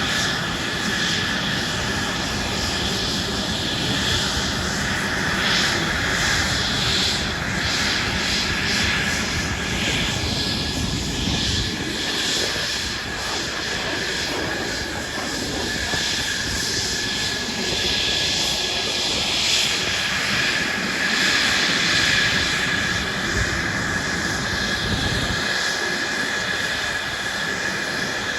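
Airplane engine running steadily, with a steady high-pitched whine over the engine noise.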